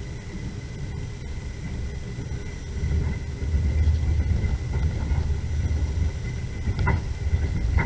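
Moving train rumbling steadily, louder from about three seconds in, with two brief squeaks near the end.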